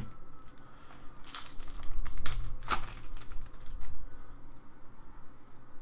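A Cryptozoic The Walking Dead trading card pack being torn open by hand, its wrapper crinkling and ripping in a quick run of strokes about a second in, loudest near the middle.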